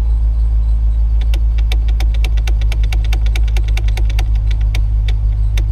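Chevrolet Silverado pickup idling, a steady low hum heard from inside the cab, with a quick run of light ticks, about seven a second.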